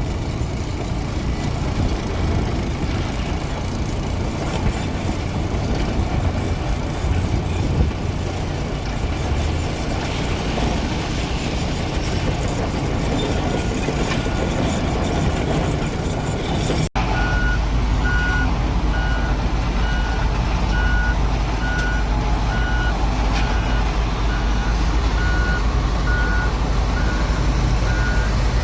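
JCB 3DX backhoe loader's diesel engine running. After a cut about halfway through, the engine runs steadily while the reversing alarm beeps about once a second.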